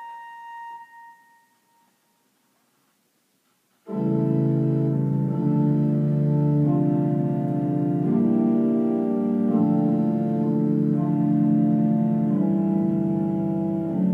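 Church organ: a soft held passage dies away over the first two seconds, then near silence for about two seconds. About four seconds in, full organ comes in loud with sustained chords over a pedal bass.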